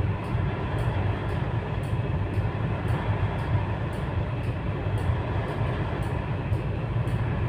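Steady low rumble of a ship's running engines, heard inside the bridge.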